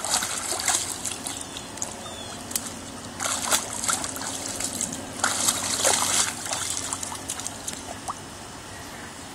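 Water splashing and sloshing in a plastic kiddie pool as a dog snaps and paws at a garden hose stream. The splashing comes in bursts near the start, around the middle and again a little later, over a steady trickle of running hose water.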